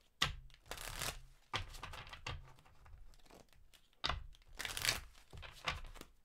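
A deck of cards being shuffled by hand: several short bursts of papery rustling and card-on-card sliding with brief pauses between.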